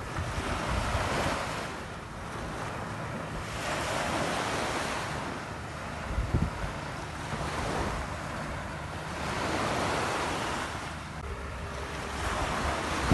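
Ocean surf breaking and washing ashore, the rush swelling and fading every few seconds, with wind rumbling on the microphone.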